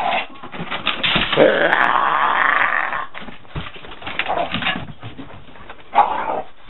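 Dogs growling and scuffling in rough play, loudest from about one to three seconds in.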